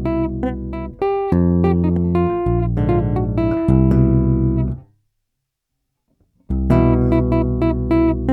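Electric bass played with a two-handed tapping technique through an 1176-style limiter (the Zoom B6's Limiter 76 effect): a run of quick tapped notes, a break of about a second and a half near the middle, then the same phrase starts again.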